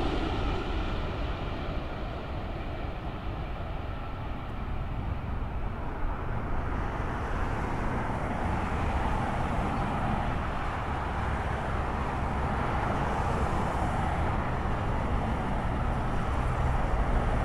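Jet engines of a Boeing 787 on landing: the roar fades after it passes low overhead, then becomes a steady, more distant roar with a low rumble as the airliner touches down and rolls out along the runway.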